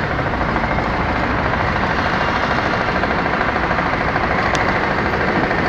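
An engine running steadily at idle, with a fast even pulse.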